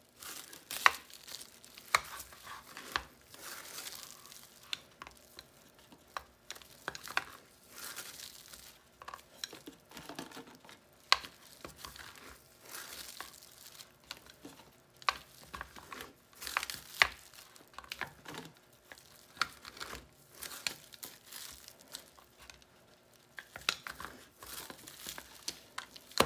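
Once-fried plantain slices being smashed flat, one after another, with a plastic-wrapped wooden board on a plastic cutting board: crinkling of the cling wrap under the hands, with sharp taps and knocks at irregular intervals as the board is pressed down, lifted and set back on the cutting board.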